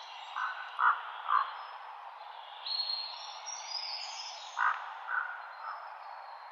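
Forest songbirds singing over a steady background hiss. A lower call of three short notes comes twice, near the start and again about five seconds in, with high, thin song phrases in between.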